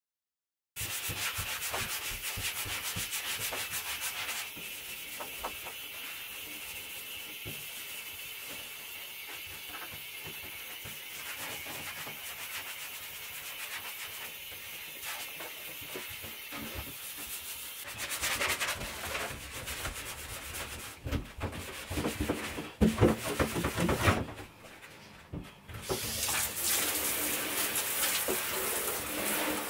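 Scouring pad scrubbed hard and fast against a bathtub surface to rub off layers of limescale, in a steady run of quick abrasive strokes. Later the scrubbing turns louder and more uneven, with a few knocks and a brief pause.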